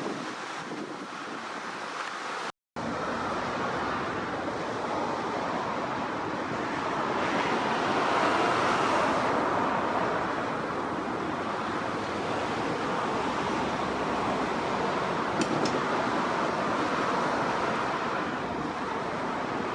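Steady rushing outdoor noise of wind on the microphone and road traffic, swelling about eight seconds in and easing after ten. It cuts out completely for a moment near the start.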